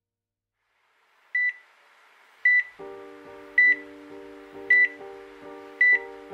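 Hospital heart monitor beeping steadily, one short high beep about every second, starting about a second in. A few seconds in, a sustained music chord comes in beneath the beeps.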